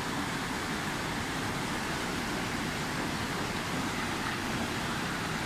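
Steady rush of a fast-flowing river running over rocks and rapids.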